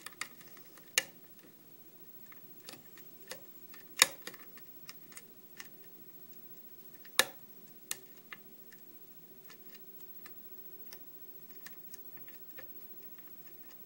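Small irregular metallic clicks and ticks of a hook pick working the pins of a brass Mallen pin-tumbler lock cylinder held under tension in a deep false set. A few sharper clicks stand out about one, four and seven seconds in.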